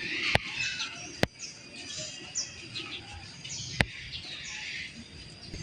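Small birds chirping: short, high, falling chirps, repeated several times, with a few sharp clicks in between.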